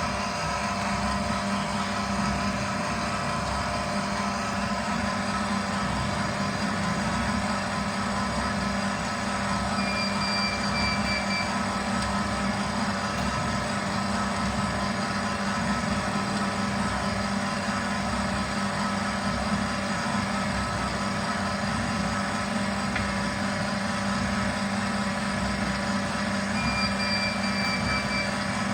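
Electric pipe-cutting machine running steadily, its motor and gear drive giving an even hum. A brief high squeak comes twice, about ten seconds in and near the end.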